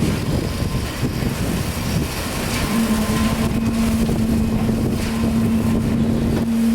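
Heavy construction machinery running with a steady low rumble. A steady hum joins it a little under three seconds in.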